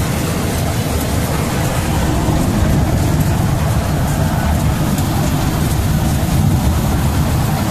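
Miniature park ride train running along its narrow track: a steady low rumble.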